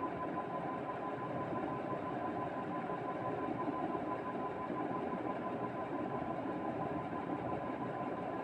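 A steady machine-like hum with a faint, constant high tone running through it. There are no sneezes or other sudden sounds.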